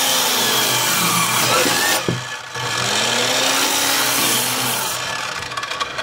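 Radial arm saw running and crosscutting a wooden board, its tone sagging and recovering under load. About two seconds in there is a sharp knock and a brief dip where the blade catches on a knot in the board, then the cut carries on and the noise tails off near the end.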